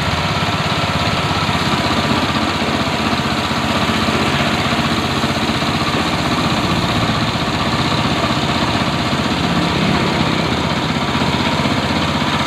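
A small engine running steadily at an even idle, with a fast regular low pulsing.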